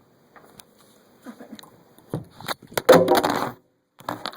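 Cabinet doors being opened and shut: several sharp wooden clicks and knocks, with a louder clattering bang about three seconds in.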